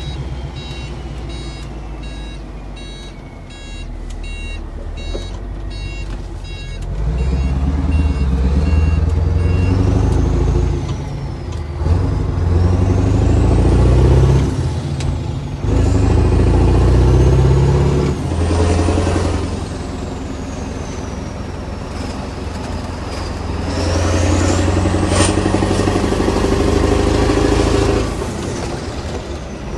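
Mack E9 V8 turbo diesel truck engine running and being revved up and down several times, with a turbo whistle that climbs and falls with each rev. In the first few seconds a string of short high beeps sounds over the idling engine.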